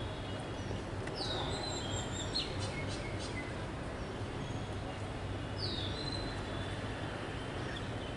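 A few short bird chirps, each a quick downward-sliding note, about a second in, near two and a half seconds and near six seconds, over a steady low background hum.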